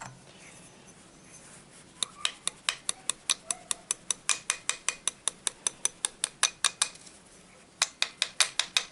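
Rapid, evenly spaced light metallic clicks, about five or six a second for some five seconds, then after a short pause another brief run, from hand work on the metal parts of a heater fan motor.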